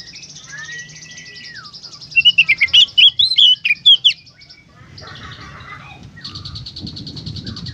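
Oriental magpie-robin (kacer) singing in the fast, chattering 'konslet' style. A rapid buzzing trill runs over a drawn-out whistle, then comes a loud burst of varied warbled notes from about two to four seconds in. The buzzing trill starts again near the end.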